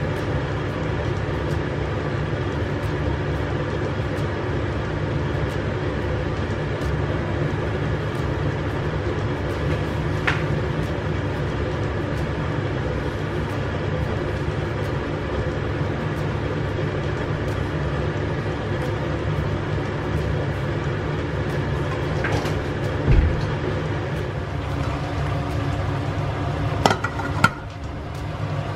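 A steady mechanical hum, like a running household machine, with a low thump about three-quarters of the way through and a few sharp knocks near the end.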